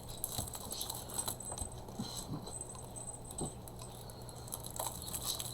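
Soft rustling and scattered small clicks of a paper pad and its packaging being handled.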